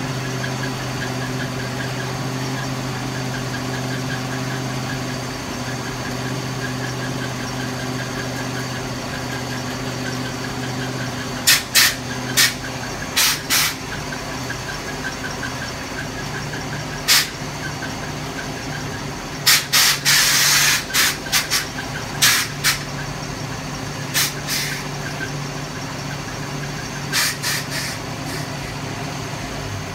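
Ford FE big-block V8 idling steadily, with short sharp bursts of air hiss from the air-ride suspension valves as the bags are filled and dumped. The bursts begin about a third of the way in and come thickest around two-thirds through.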